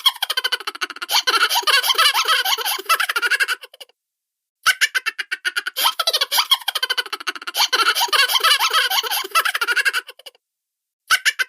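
Cartoon-style laughter: high-pitched giggles and chuckles in quick bursts. It breaks off into silence for about half a second around four seconds in and again near the end, the same laugh seemingly starting over each time.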